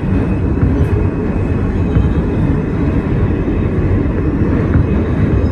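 A Kawasaki R160B subway train running through the tunnel: a loud, steady, low rumble from the wheels and motors on the track.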